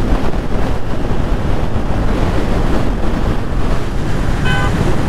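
Heavy wind noise on the microphone of a motorcycle riding at highway speed, with the low rumble of the Royal Enfield Classic 350's single-cylinder engine underneath. A brief steady tone sounds once about four and a half seconds in.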